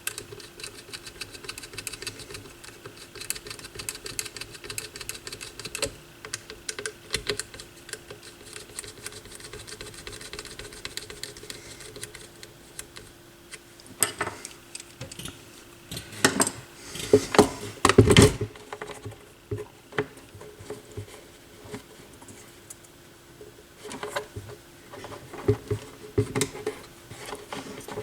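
Small clicks and taps of hands working on a turntable, over a faint steady hum, with a few louder knocks and clunks around the middle.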